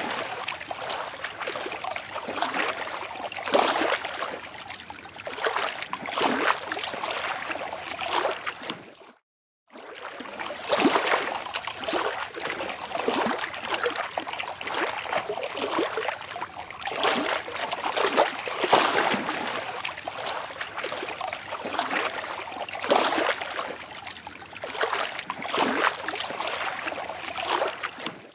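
Water splashing and lapping, in uneven surges every second or two. The sound cuts out completely for about half a second a third of the way in, where one water recording gives way to another.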